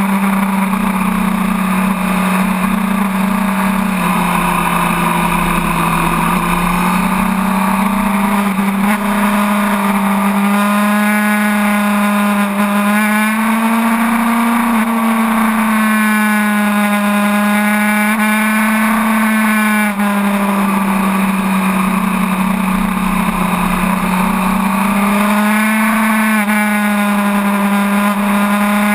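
Sport bike's inline-four engine running at steady high revs on the move, its pitch rising and dipping gently as the throttle is rolled on and off through corners, with wind rush over the bike-mounted mic.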